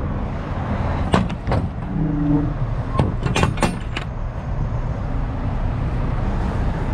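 Metal clanks from a semi-trailer's rear swing-door latch and lock bar as the opened door is handled and secured: a few sharp knocks about a second in and a cluster around three seconds in. Behind them is the steady low rumble of idling trucks.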